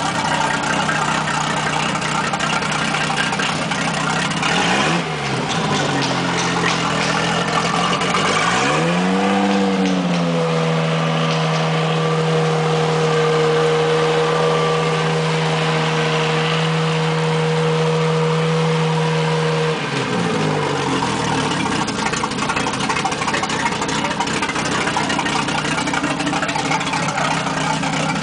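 A Four Winns boat's sterndrive inboard engine running out of the water on a garden-hose water feed, its propeller spinning in the air. It idles, blips briefly about five seconds in, then rises to a higher steady speed for about ten seconds before dropping back to idle.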